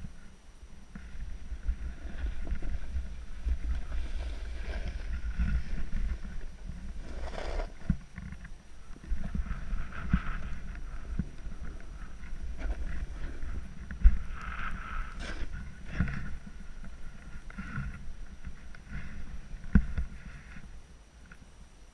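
Snowboard riding down through snow, heard from an action camera on the rider: a low rumble full of small bumps, with a scraping hiss of the edge through snow on each turn, every few seconds. There is a sharp knock about two-thirds of the way through and another near the end.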